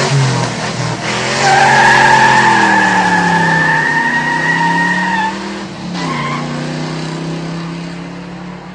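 Racing car engine running hard with a long tyre squeal from about a second and a half in to about five seconds. After the squeal the engine settles to a steadier note.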